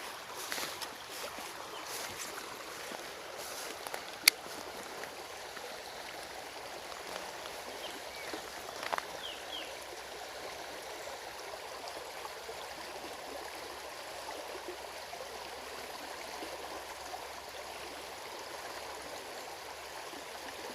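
Shallow, fast-flowing stream water running steadily over rocks, with a single sharp click about four seconds in.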